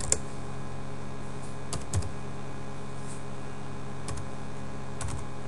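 Computer keyboard being typed on in short clusters of a few keystrokes with pauses between, over a steady low hum.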